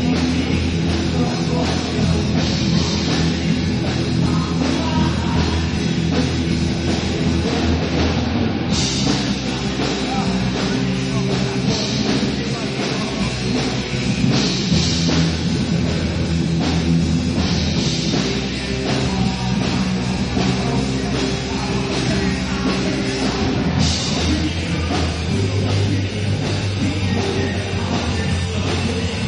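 A band playing loud, heavy rock with a drum kit, with cymbal-like crashes every few seconds.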